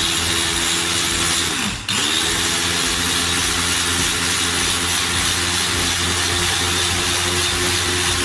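Tefal MasterChop electric chopper's motor running steadily at speed, blending yogurt, milk, water and salt into frothy ayran. About two seconds in the button is let go for a moment: the motor winds down in pitch, then spins straight back up.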